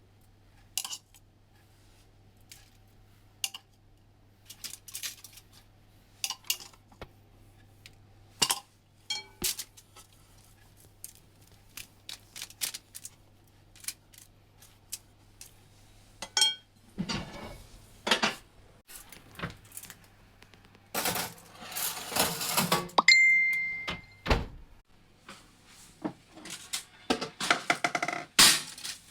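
Kitchen clatter: scattered clinks and knocks of dishes and utensils, growing into a denser run of clattering and scraping in the second half. A low hum stops about halfway, and a short high beep sounds about two-thirds of the way through.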